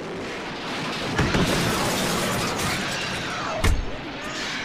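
Glass shattering: a continuous crash of breaking glass, with a heavier thud about three and a half seconds in.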